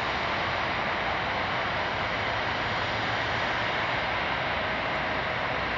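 Turbofan engines of an Embraer 195 airliner running as the jet moves along the runway: a steady, even rushing jet noise with no rise or fall.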